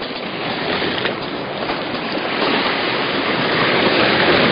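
Sea waves washing and splashing against shoreline rocks, growing louder toward the end.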